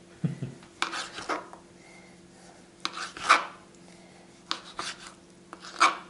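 Kitchen knife slicing tomatoes on a plastic cutting board: short cutting strokes in small clusters, several ending in a sharp knock of the blade on the board. The knife is one the cook complains is dull.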